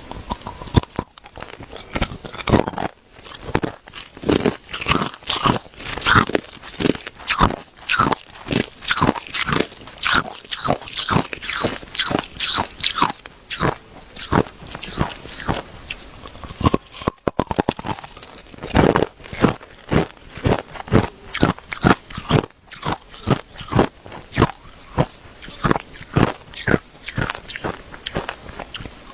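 Hard ice being bitten and chewed: a steady run of sharp, crackling crunches, several a second.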